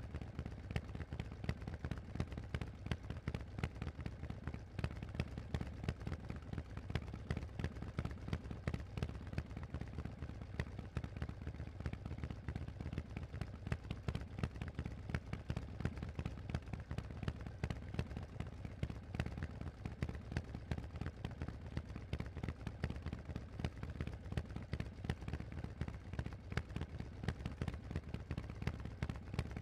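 Harley-Davidson Forty-Eight's air-cooled 1200 cc V-twin running through a Vance & Hines exhaust while riding, a steady stream of rapid, lumpy exhaust pulses with a deep low end.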